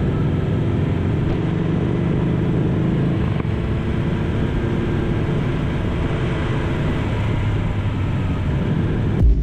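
BMW S 1000 XR motorcycle's inline-four engine running steadily at low road speed, heard from the rider's position with wind noise on the microphone. A sudden low thump comes at the very end.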